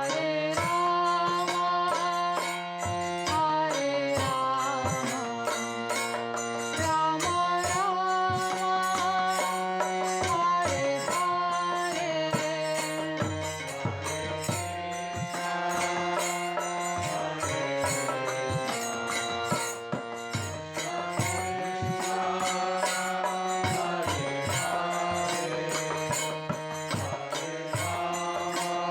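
Background devotional music: mantra chanting over a steady drone, with light hand percussion.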